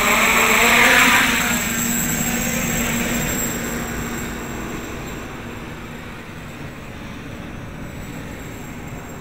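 A 550-size quadcopter's electric motors and propellers buzzing in flight. It is loudest about a second in, then fades steadily as it flies away.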